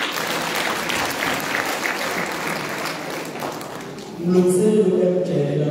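Audience applauding for about four seconds; near the end the clapping dies down and a single amplified voice begins.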